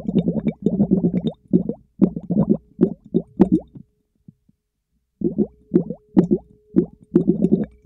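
Air bubbles blown through a tube into a bowl of water, heard underwater through a latex-covered microphone: bursts of low bubbling and popping. They stop for about a second and a half a little past the middle, then start again.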